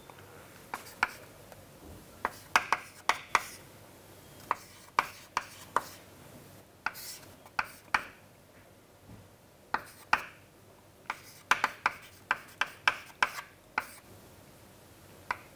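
Chalk writing on a chalkboard: sharp taps and short scratches as figures are written, in irregular clusters of strokes with brief pauses between them.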